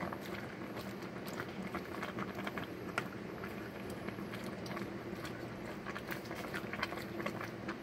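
A utensil stirring vegetables and leafy greens in a stainless-steel pot of simmering broth: irregular soft clicks and taps against the pot with a wet rustle of leaves, over a steady low hum.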